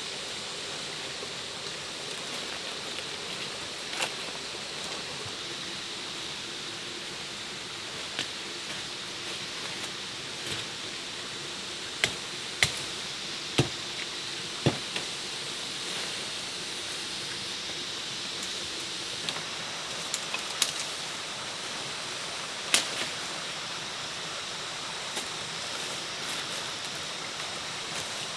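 Steady rush of flowing water, with sharp knocks or cracks every few seconds and several close together about twelve to fifteen seconds in.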